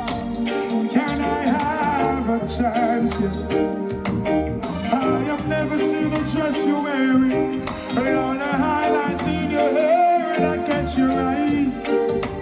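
Live reggae band music with a steady bass and beat, and a voice singing the melody over it at intervals.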